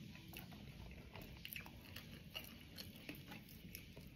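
Faint close-up chewing with scattered small crunches and crackles: a person eating crispy fried chicken and pulling the meat apart with the fingers.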